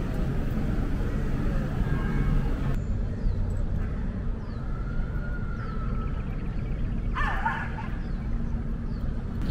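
Steady low rumble of city traffic, with a short call about seven seconds in.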